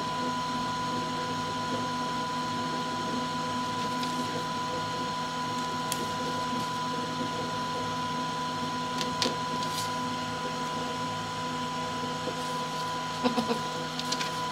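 Geared-down stepper motor of a clay 3D printer's extruder running slowly, driving the plunger screw with a steady high whine. A few light clicks and knocks come about halfway through and near the end.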